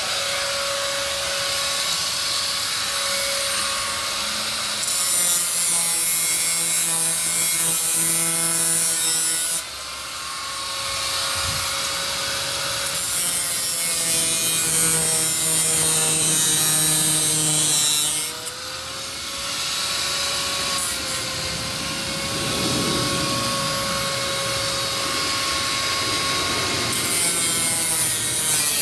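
Electric angle grinder running with a steady whine, its disc grinding bolt heads round so they cannot be unscrewed. Three long spells of grinding, each several seconds, with the motor running between them.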